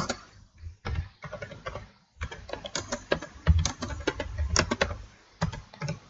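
Computer keyboard being typed on: quick runs of irregular keystrokes, with a short pause about two seconds in.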